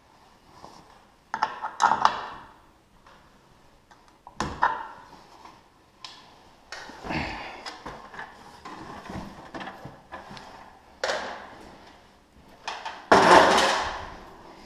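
Clanks, knocks and rattles of hands and tools working on a garage door opener's loose drive chain and rail: a string of separate sharp knocks, with the loudest clatter, about a second long, near the end.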